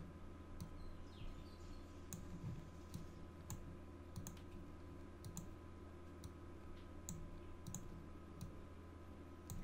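Computer mouse clicking: a dozen or so faint, irregularly spaced clicks as colours are picked, over a steady faint hum.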